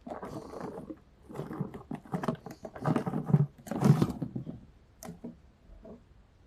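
Fidget toys being handled and sorted: about four seconds of irregular rustling and clattering, loudest near the end, then a single sharp click.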